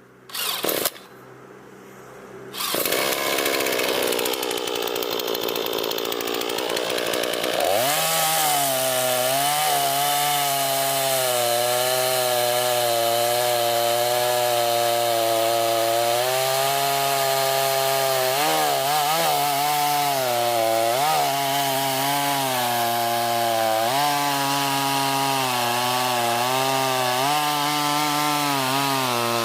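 Chainsaw running at high revs and cutting wood, with a brief loud knock just after the start. The motor's pitch sags and recovers several times as the chain bites under load.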